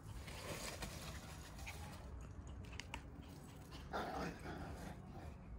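Shiba Inu puppies playing, with faint small scuffles and a brief puppy vocal sound about four seconds in.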